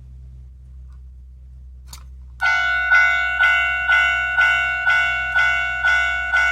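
A sound-making capsule toy starts playing a bell-like electronic ring about two and a half seconds in, just after a faint click, repeating about twice a second with each ring fading quickly.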